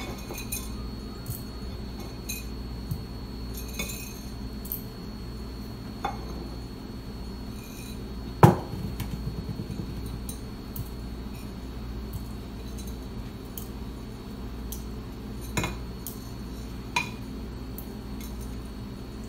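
Scattered clinks and knocks of glass and metal kitchen ware being handled, about seven in all with the loudest about eight and a half seconds in, over a steady low hum.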